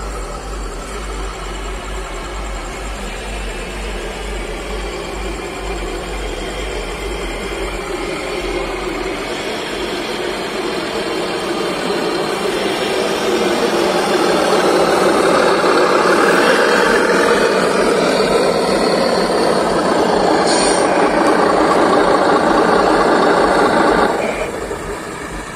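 Simulated diesel truck engine from a miniature RC truck's sound unit, idling and revving. It grows louder about halfway through and drops off suddenly near the end.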